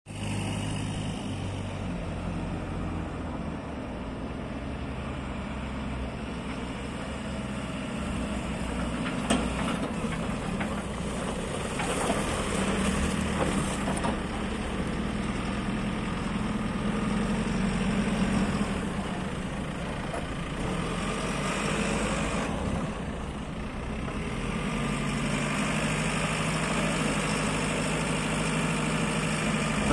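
JCB 3CX backhoe loader's diesel engine running, swelling and easing off in loudness a few times, with a couple of sharp clicks.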